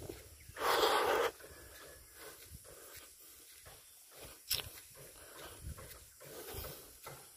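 A person breathing hard while walking uphill through grass, with one loud breathy huff about a second in and a sharp click about four and a half seconds in.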